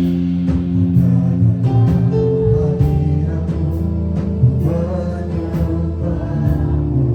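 Live church worship band playing: held keyboard chords, a bass line and guitar over a steady drum beat.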